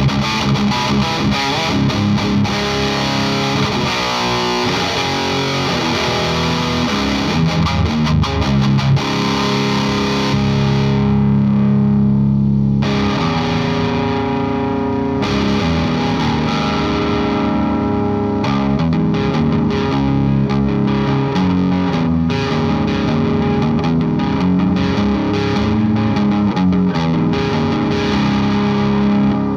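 Electric guitar playing heavily distorted riffs through a Hellmouth distortion pedal and a Rivera tube amp into an isolation cabinet. About ten seconds in, a chord is left to ring for a couple of seconds before the riffing resumes.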